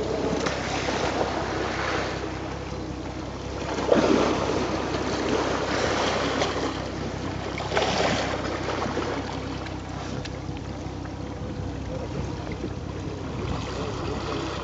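Water sloshing and washing around a southern right whale surfacing right beside a boat, with wind on the microphone. Two louder whooshing surges come about four and eight seconds in.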